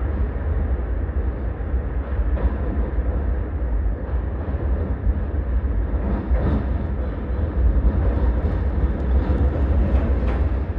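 Keisei Main Line train running through an underground tunnel, heard from inside the car: a steady low rumble of wheels on track.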